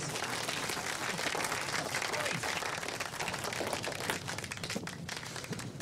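A crowd applauding: many hands clapping together at a steady level.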